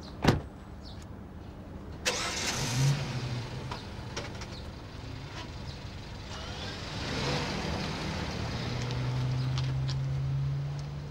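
A car door shuts with a single loud thud; about two seconds in the car's engine starts, then runs with a steady low hum that grows louder toward the end as the car drives off.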